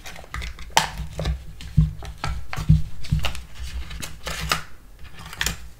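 Fingers picking and tugging at the stuck peel-off lid of a plastic Snack Pack gel cup, giving irregular crackles and clicks of plastic and foil; the lid is hard to get off.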